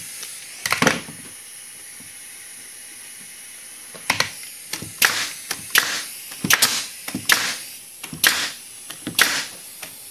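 Pneumatic brad nailer firing brads into plywood: one double shot about a second in, then a quick, uneven run of about a dozen sharp shots from about four seconds on. A steady high hiss runs under the first few seconds.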